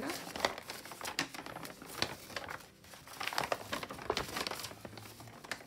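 Irregular crinkling and rustling of a paper cross-stitch chart from a magazine being handled and shown.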